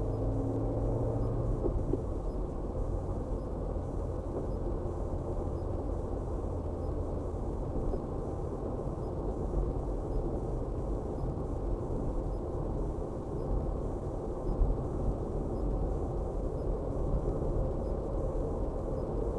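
Steady low rumble of a car driving: tyre and engine noise heard from inside the cabin through a dashcam microphone. A low engine hum drops away after about two seconds, and there is a brief bump near three quarters of the way through.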